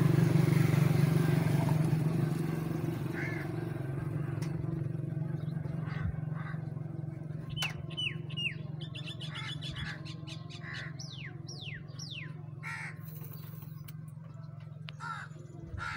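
An engine running nearby, a steady low hum that fades over the first few seconds and carries on faintly. In the middle a bird calls with a run of quick falling chirps, and a few small sharp clicks come from handling metal carburettor parts.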